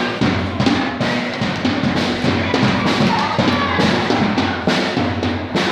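Drum kit being played: repeated kick and snare hits, about two to three a second, over sustained low notes.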